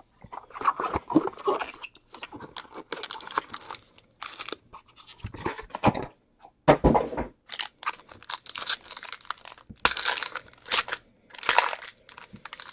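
Foil trading-card pack wrapper crinkling and tearing as it is opened by hand, with a small cardboard card box handled. Irregular rustles and sharp crackles, with short pauses between them.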